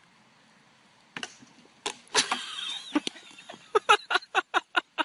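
Metal spinning spring rider on a playground knocking and squeaking as its seat is spun, ending in a fast, even run of short squeaks, about five a second.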